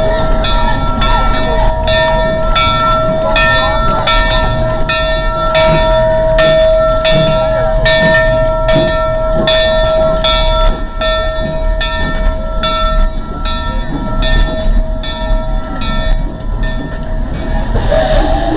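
Narrow-gauge steam locomotive No. 41 working at low speed: a regular beat about twice a second under a steady high whine, with a burst of steam hiss near the end.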